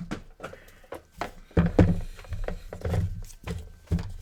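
Irregular knocks and thumps of hands handling an opened PS4 console, taping down its Blu-ray drive data cable, with the loudest cluster in the middle.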